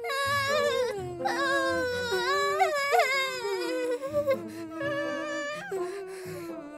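A young girl's voice whimpering in fright, a long wavering cry whose pitch sinks slowly.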